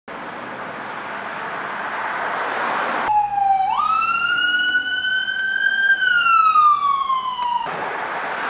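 A police-style siren gives one slow wail. It jumps up in pitch shortly after it starts, climbs slowly, then falls, and it cuts in and out abruptly. Before and after it, an even rushing noise swells.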